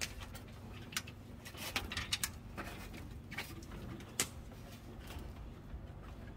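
Footsteps and light clanks on a metal ladder and steel scaffolding as someone climbs: scattered clicks and knocks, the loudest about four seconds in.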